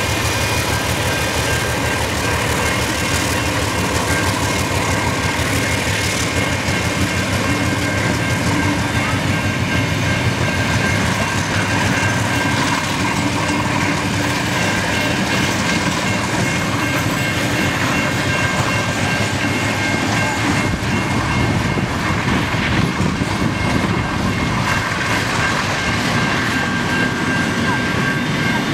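Diesel-electric locomotive 4501 passing, followed by a long train of passenger carriages rolling by, with a steady rumble and clatter of wheels on the rails.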